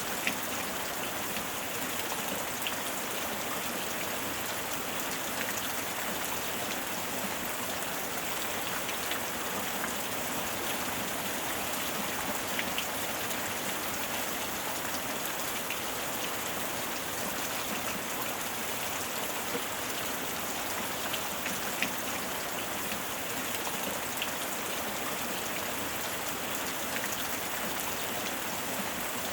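Steady heavy rain falling, an even hiss with scattered sharp drop ticks.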